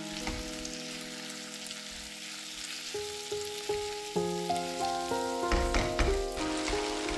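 Chopped tomatoes and onions sizzling in hot oil in a kadhai on a high flame, with stirring scrapes and knocks against the pan around six seconds in. Soft background music plays under it.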